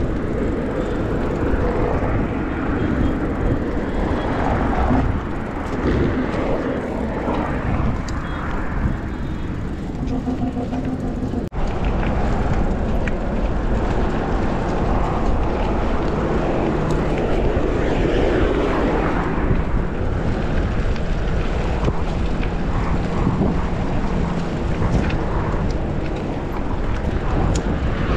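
Steady rumbling wind noise on the microphone of a camera carried on a moving mountain bike, with a sharp break about eleven and a half seconds in.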